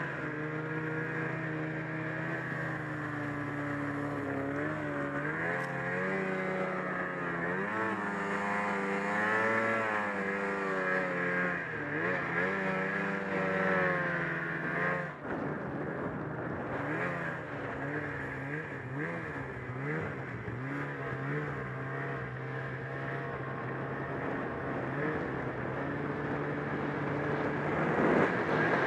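Ski-Doo snowmobile's 800 H.O. two-stroke engine running under way, its pitch rising and falling with the throttle, with a brief drop about halfway through. Near the end the sound grows louder with a rushing noise.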